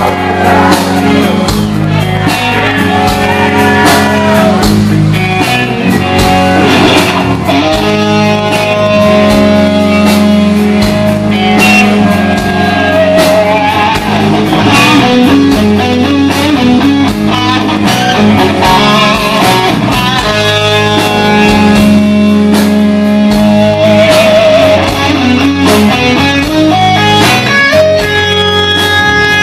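Live rock band playing: a Stratocaster-style electric lead guitar plays sustained, wavering vibrato notes over bass guitar and drums.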